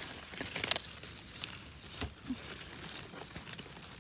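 Dry fallen leaves and grass rustling and crackling as a gloved hand pushes through the leaf litter around a mushroom.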